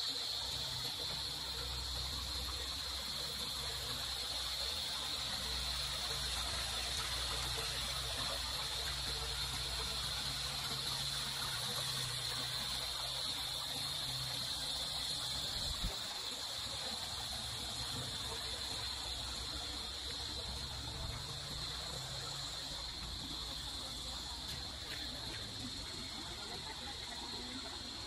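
Steady high-pitched insect chorus over a constant hiss, with a low rumble in the first half and a single thump about sixteen seconds in.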